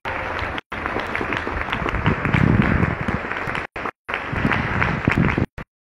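Audience applauding, a dense patter of many hands clapping, with the recording cutting out briefly a few times.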